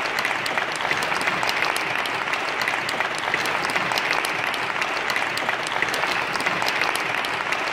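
A church congregation applauding the newly married couple: steady, dense clapping of many hands.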